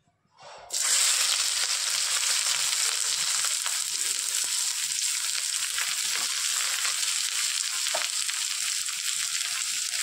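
Chopped onions sizzling as they drop into hot mustard oil in a kadhai. The sizzle starts suddenly under a second in and holds steady, with a few faint pops.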